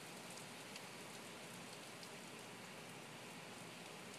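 Heavy rain falling steadily, an even hiss with scattered light ticks of individual drops.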